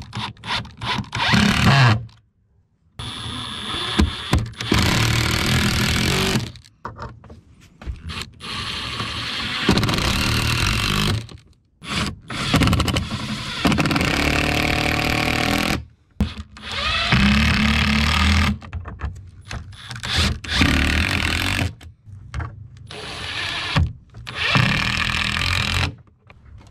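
Woodworking power tools running in short stretches one after another, each cutting off abruptly after a second or a few and giving way to the next.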